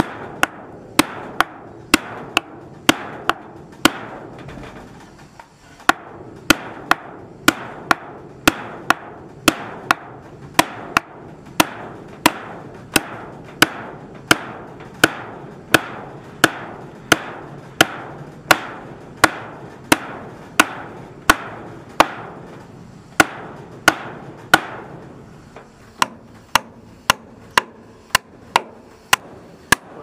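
Hammer blows on wooden roof framing, driving nails into the timber beams: steady sharp strikes about two a second, with a short pause about five seconds in.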